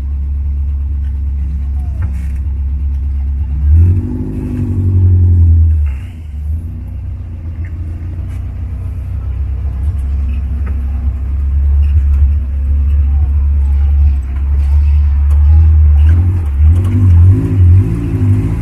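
Off-road jeep engine running under load with a steady low drone, revving up briefly about four seconds in and again near the end.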